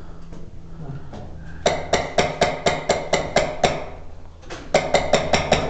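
Airsoft gun firing in two quick strings of shots, about four a second: about nine shots, a short pause, then about six more.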